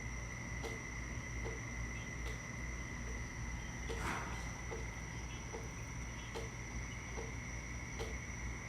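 A steady high-pitched trill, like an insect's, with faint regular clicks a little more than once a second over a low hum.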